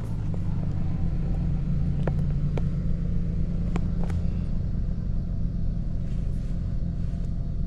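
2009 Saab 9-7X engine idling steadily, with a few faint clicks about two and four seconds in.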